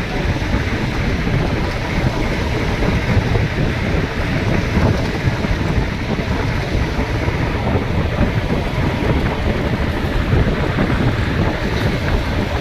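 Steady rush of wind buffeting the microphone of a moving vehicle, with a low rumble of road noise underneath.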